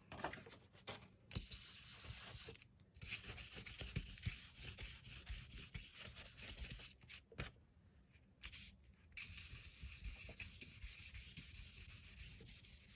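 Foam blending tool scrubbed back and forth over the edges of a paper journal page, working ground espresso into it. A soft, faint rasping in several stretches, with brief pauses between them.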